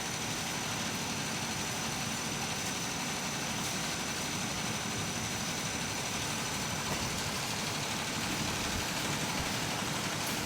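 Steady mechanical drone with a faint, steady high-pitched whine over it.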